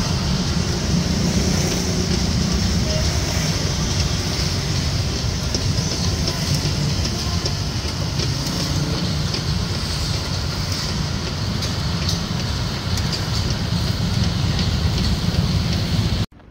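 Steady rumble of passing street traffic with scattered small clicks and ticks from a charcoal rotisserie whose spits are turned by a pulley-and-gear drive; it cuts off abruptly near the end.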